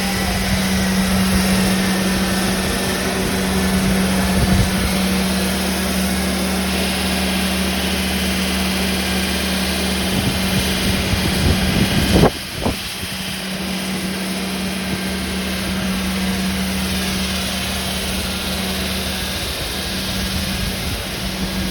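Construction machinery running steadily with a constant low hum, with a brief sharp knock about twelve seconds in.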